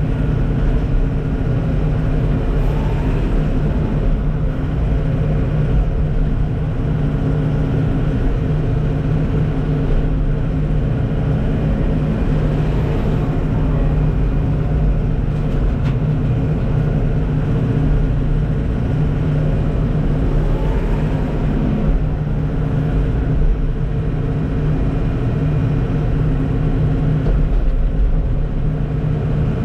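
Kenworth T880 dump truck's diesel engine running steadily while driving.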